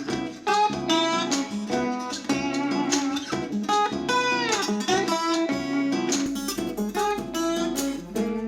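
Acoustic guitar music played back through a small portable Bluetooth speaker, picked up by a microphone. There is a sliding note about four seconds in, and the deep bass underneath shifts about six seconds in.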